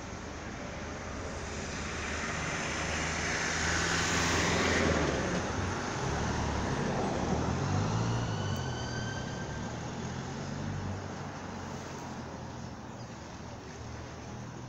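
A motor vehicle passing by, its engine and rolling noise swelling to a peak about four to five seconds in, then fading away, with the engine note wavering in pitch midway.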